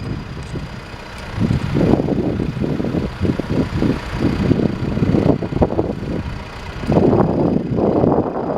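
2011 John Deere 310SJ backhoe loader's diesel engine running, its sound swelling and easing unevenly, louder about two seconds in and again near the end.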